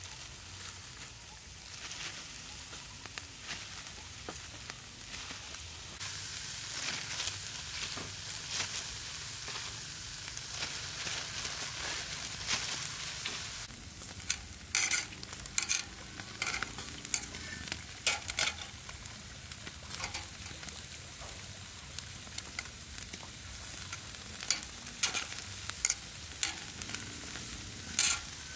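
Food sizzling as it fries in a pan, a steady hiss that grows louder about six seconds in. From about halfway through it is joined by scattered sharp knocks of a utensil stirring and striking the pan.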